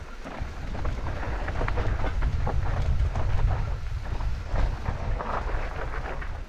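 Mountain bike riding down a dirt trail: wind buffets the microphone as a heavy low rumble that builds about half a second in. Under it run tyre noise and a stream of rattling clicks from the bike over rough ground.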